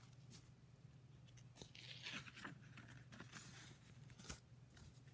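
Faint rustling of paper as a picture-book page is turned and a loose sheet of paper is slid back over the text, with a light tap about four seconds in.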